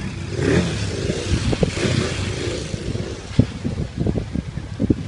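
KTM 1190 Adventure R's V-twin engine running and revving, rising and falling in pitch, with a few sharp knocks on the phone's microphone.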